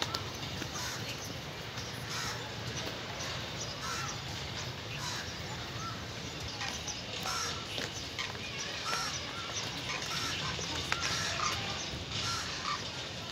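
Many birds calling: a busy chorus of short, repeated calls over a steady low background noise.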